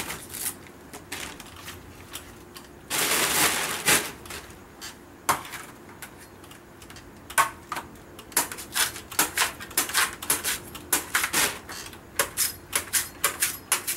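Knife cutting and trimming the husk of a young green Nam-Hom coconut: a second-long rustle about three seconds in, then a run of short sharp cuts and taps, about two to three a second, through the second half.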